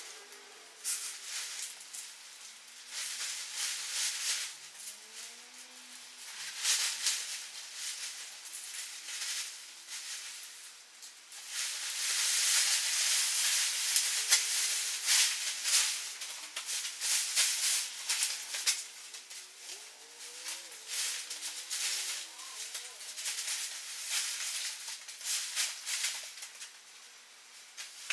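Tent rain fly rustling and crinkling as it is handled and pulled over the tent, in irregular bursts with a longer stretch of steady rustling about halfway through.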